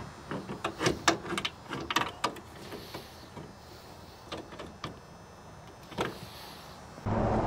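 Quick metal clicks and clinks, many in the first two seconds and a few more later, as a half-inch pin and fittings are handled and fitted into the steel housing of a trailer gate lift. Near the end a steady rushing noise cuts in abruptly.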